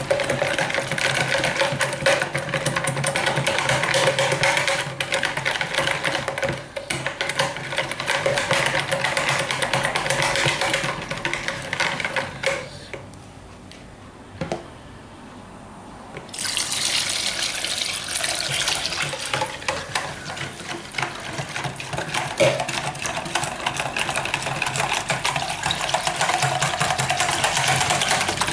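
Wire whisk beating milk into a butter-and-flour roux in a jug: fast, continuous whisking and sloshing liquid, done hard to keep the sauce smooth and lump-free. It stops for about three seconds a little before the middle, then starts again.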